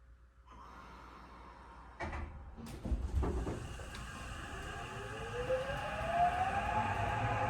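The doors of a Tokyo Metro 8000-series train slam shut with loud bangs about two seconds in. The train then pulls away, and its traction motors give a whine that rises steadily in pitch as it accelerates.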